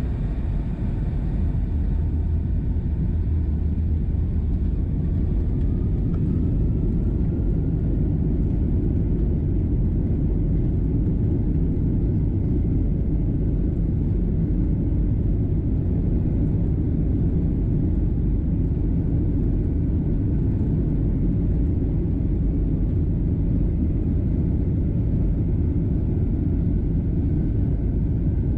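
Boeing 757-200 jet engines spooling up to takeoff thrust and the takeoff roll, heard from inside the cabin. A heavy, steady rumble with a faint rising whine a few seconds in as the airliner accelerates down the runway.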